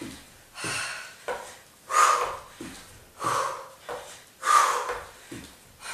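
A woman breathing out hard in time with step-up jumps, one strong breath about every 1.3 seconds, with lighter thuds of sneakers landing on a wooden step stool and exercise mat between the breaths.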